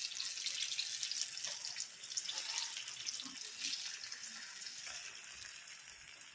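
Battered ripe jackfruit pieces deep-frying in hot sunflower oil, a steady crackling hiss that eases off slightly toward the end.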